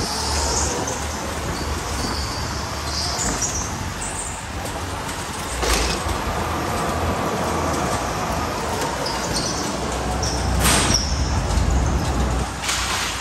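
Electric go-kart driven at speed round an indoor track, heard from the driver's seat: steady motor and tyre noise over a low rumble, with patches of high hiss and three brief sharp bursts of noise, about six, eleven and thirteen seconds in.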